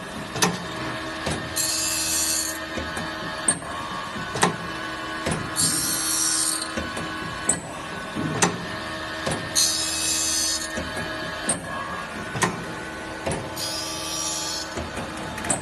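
Automatic circular saw blade sharpening machine grinding the blade tooth by tooth: a steady motor hum, a sharp click every second or so as the mechanism steps, and a hissing grind about a second long roughly every four seconds as the wheel passes over a tooth.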